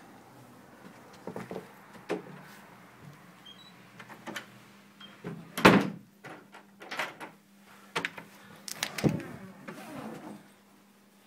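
A door's lever handle clicking and the door being opened and pushed through, with a series of sharp knocks and bumps; the loudest knock comes about halfway through.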